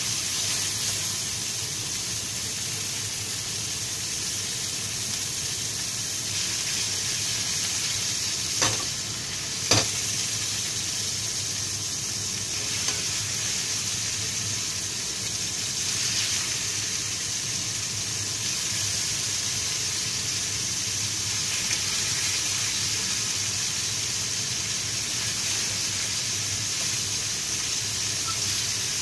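Marinated pork collar slices frying in oil in a frying pan, a steady sizzle, with two sharp knocks about nine and ten seconds in.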